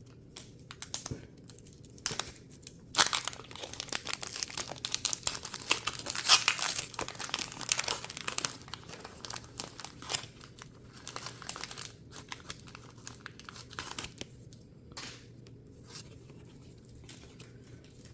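Foil Pokémon card booster pack being torn open and its wrapper crinkled: a dense run of crinkling from about three seconds in to about twelve, loudest around six seconds, then a few scattered small crinkles.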